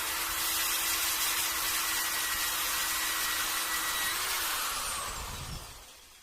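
Electric drill with a metal bit running steadily as it bores a hole in a car-audio horn speaker, then winding down and stopping near the end.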